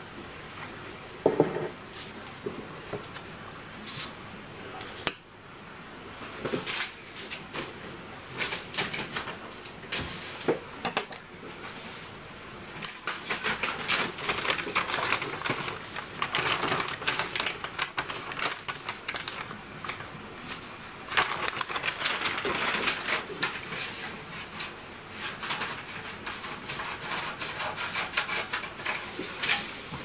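Sheets of paper and wrapping paper handled by hand, rustling and crinkling in repeated bursts, with small taps and clicks on the table. A single sharp knock on the tabletop about a second in.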